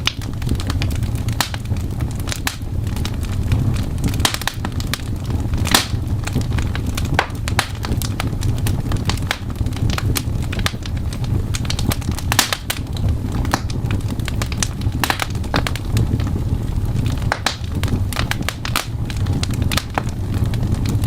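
Fireplace crackling, with irregular sharp pops and snaps over a steady low rumble.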